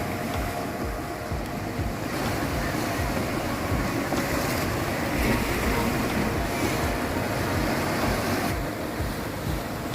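Sea waves surging and breaking against rocks, a continuous wash of surf that swells a little around the middle, with low wind rumble on the microphone.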